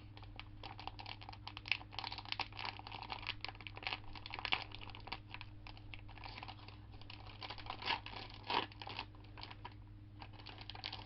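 Plastic snack packaging being handled and opened: a rapid, irregular crackle of crinkling wrapper, with a few louder crackles about 2, 4.5 and 8 to 9 seconds in, over a steady low electrical hum.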